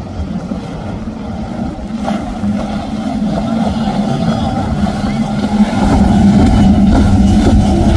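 Large center-console powerboat's bank of outboard engines running at speed, a steady drone that grows louder as the boat comes closer, loudest near the end, with the rush of its hull wash and spray.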